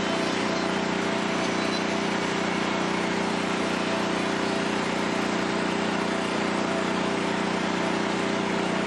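A 13 HP Honda engine running on wood gas from a gasifier, driving a generator at a steady speed with an even, unchanging hum.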